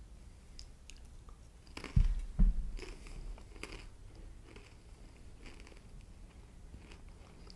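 Someone chewing and crunching a piece of communion bread close to the microphone, with two low thumps about two seconds in and a scatter of small crunches after them.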